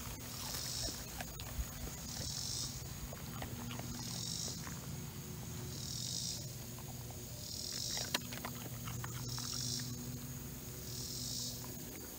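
Insects buzzing in an even rhythm, one hissing pulse of under a second about every second and a half to two seconds, over a steady high whine, with scattered light rustles and clicks as a dog moves through the grass.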